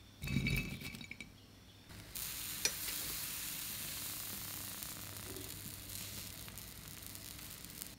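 Takoyaki batter sizzling steadily in a hot takoyaki pan, starting about two seconds in, with a single sharp click shortly after. A brief knock and clatter comes near the start, before the sizzling.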